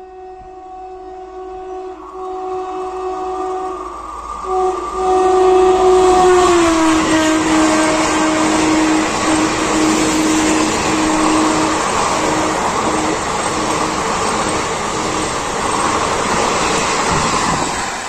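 Indian Railways Kaviguru Express passing at speed, its locomotive horn held in a long blast that drops in pitch about six to seven seconds in as the locomotive goes by, then breaks into short blasts. Under it, the loud rush and rattle of the passenger coaches running past builds up and fades near the end.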